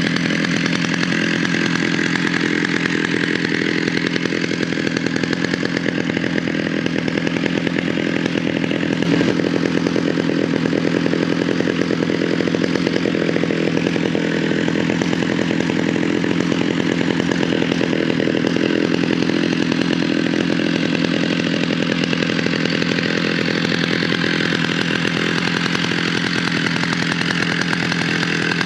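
Two-stroke engine of a Stihl TS 760 AV cut-off saw powerhead (111 cc) running steadily as it drives a home-built cable winch.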